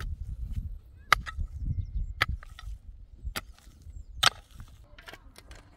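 A handful of sharp chopping blows, roughly one a second, over a low rumble that fades out about halfway through.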